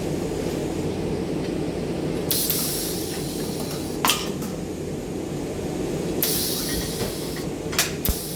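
Two short stretches of welding-arc hiss, each about a second and a half, over a steady low shop hum, with a few sharp clicks between and after them.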